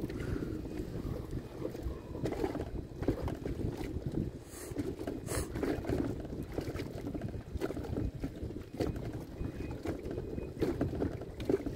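Wind buffeting the microphone and small choppy waves lapping and slapping against the hull of an inflatable boat, with irregular small knocks.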